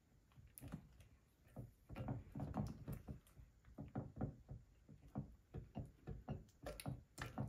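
A spatula stirring sticky glue slime in a glass bowl: faint, irregular knocks and taps against the bowl, two or three a second.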